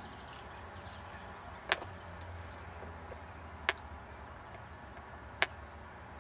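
Three sharp clicks about two seconds apart over a steady low hum.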